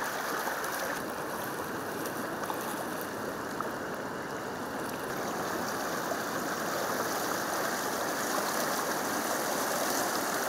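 Steady rush of flowing floodwater.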